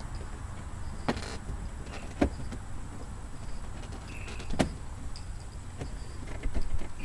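Plastic dashboard trim being handled and fitted: a few short sharp clicks and knocks, the loudest about two-thirds of the way through, over a low steady background rumble.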